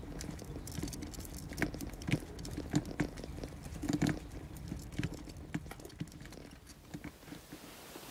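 Wheels rolling over loose grit on a rough alley surface, with irregular crackles and clicks, over the low rumble of a car's engine as it passes close by.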